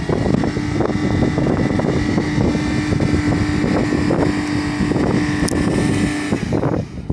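SUV engine running hard at a steady pitch while climbing soft sand, with wind noise on the microphone; the steady engine note drops away about six seconds in.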